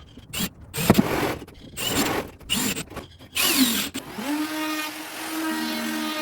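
Several short scraping strokes on wood, then a small power tool's electric motor running steadily from about four seconds in.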